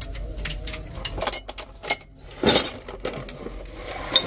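Wrenches and other metal hand tools clinking in a plastic tool tray as it is handled: several sharp separate clinks and a short, louder rattle about halfway through.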